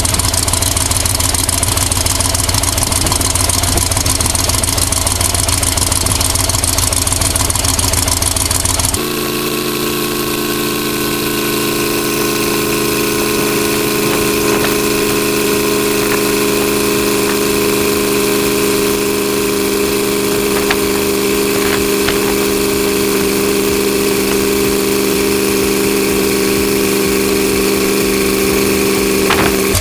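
Powerful engine-driven wind machine blowing hard: a loud, steady rush with heavy low rumble. After an abrupt cut about nine seconds in, it becomes a steadier engine hum with several held pitched tones.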